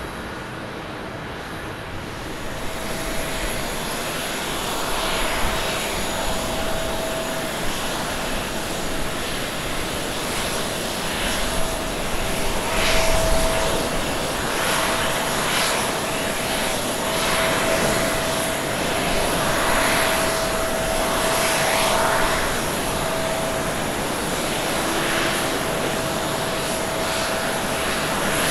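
Jet engines of a StarFlyer Airbus A320 at takeoff power as it rolls down the runway and climbs away: a steady rush with a held whine, swelling to its loudest about halfway through. The first couple of seconds are quieter, from a departing ANA Boeing 767.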